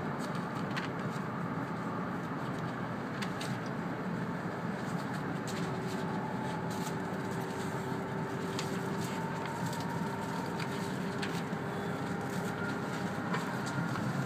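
Steady interior running noise of an E2 series Shinkansen car on elevated track, with a faint steady whine in the middle and toward the end and scattered light ticks.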